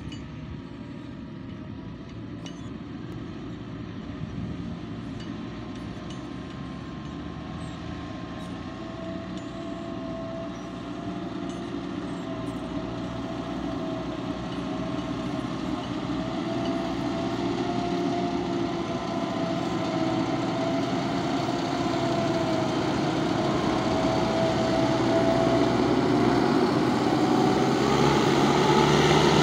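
Mahindra G90 motor grader's diesel engine running steadily under working load, with a steady whine above it, growing louder as the machine comes closer.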